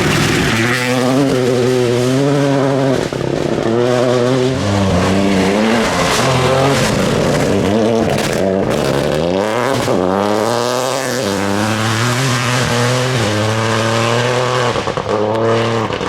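Rally car engine driven hard, its pitch climbing and dropping back again and again as it runs up through the gears and lifts off, with a broad hiss of tyres on the road surface underneath.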